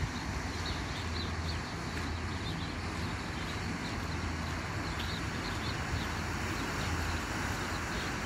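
Steady low motor rumble with a wash of background noise, interrupted by faint short high chirps.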